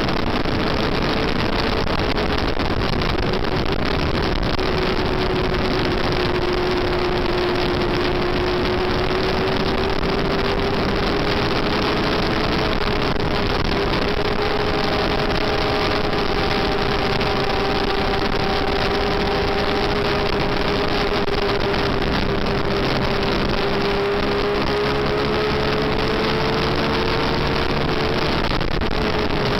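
A Yamaha FZR400 inline-four racing motorcycle engine held at steady high revs under load, heard from a camera mounted on the bike, with heavy wind rush over the microphone.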